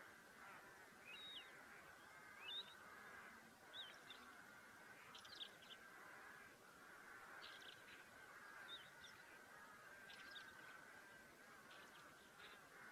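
Faint distant birds: a steady chorus with scattered short chirps and calls over it.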